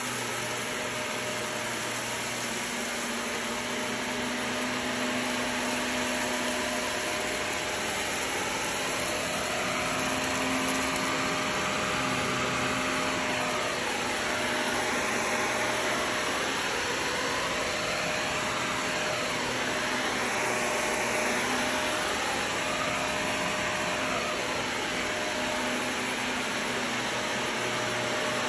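Shark upright vacuum cleaner running steadily as it is pushed over carpet: an even rush of suction with a constant motor whine.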